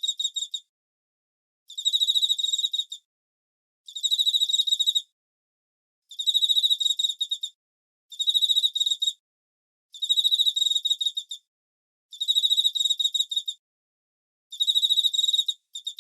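A cricket chirping in repeated trills, about one every two seconds, with short silent gaps between them. Each trill is a quick run of high, clear pulses.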